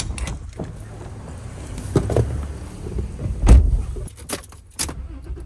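Clicks and clunks as a fuel nozzle is handled and someone climbs into a Toyota Tacoma pickup's cab, over a low rumble. A heavy thump comes about three and a half seconds in as the driver's door shuts, followed by a quick run of clicks like keys jangling.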